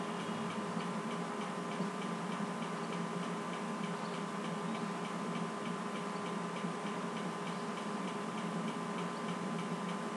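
Regular ticking, about three ticks a second, over a steady electrical hum and hiss.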